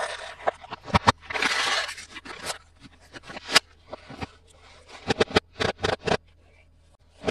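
Toy packaging being handled and opened: a crinkling, tearing rustle lasting under a second, and many sharp clicks and taps of plastic pieces throughout.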